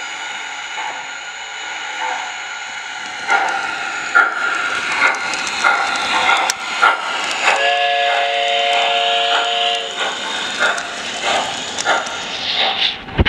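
Model steam locomotive's sound system: a steady hiss, then rhythmic steam chuffing from about three seconds in. A multi-note chord whistle sounds for about two and a half seconds midway, over the chuffing.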